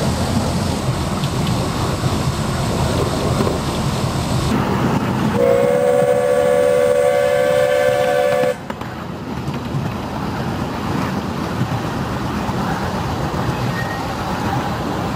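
381 mm gauge park-railway train hauled by a steam locomotive, its coaches rumbling and clattering steadily over the track. About five seconds in, the locomotive's steam whistle blows one held chord for about three seconds and cuts off sharply.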